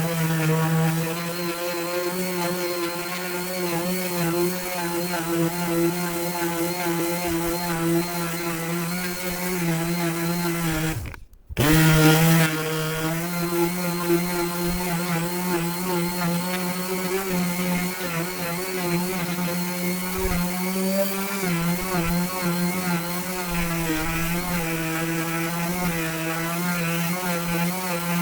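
An electric power tool running steadily, its motor pitch wavering slightly as the load changes. The sound drops out briefly about eleven seconds in, then resumes.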